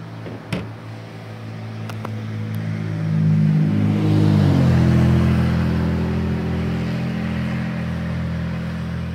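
Quadcopter drone's propellers and motors humming overhead in several steady tones. The hum grows louder about three seconds in, dips slightly in pitch around the middle, then holds steady. There is a sharp click near the start.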